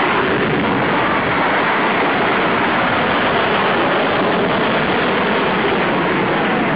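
Loud, steady roar of a fighter jet's engines, an F/A-18 Hornet pulling up from a low pass and climbing away.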